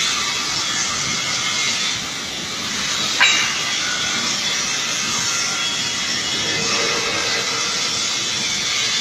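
Cutting torch of a large CNC cutting machine hissing steadily as it cuts steel plate, with a sharp click about three seconds in.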